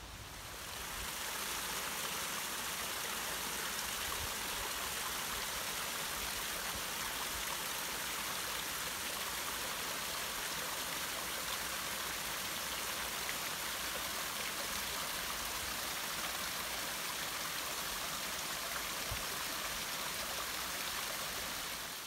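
Small artificial waterfall: water falling and splashing down over rocks in a steady, even rush that comes in about a second in.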